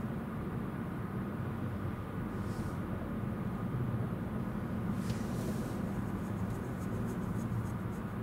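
Steady low rumble of road traffic and idling vehicle engines, with a brief hiss about five seconds in and faint light clicks near the end.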